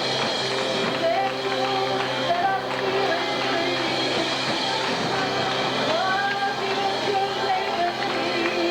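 Worship music at a church service: a band playing with voices singing a melody over it.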